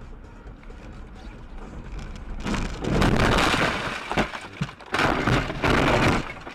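Vehicle crash on dashcam audio: a low rumble, then loud, harsh crunching and scraping noise in two long stretches starting about two and a half seconds in.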